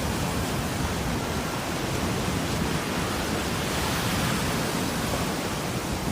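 Rough sea surf breaking on the beach, a steady rushing noise of waves that swells a little about four seconds in.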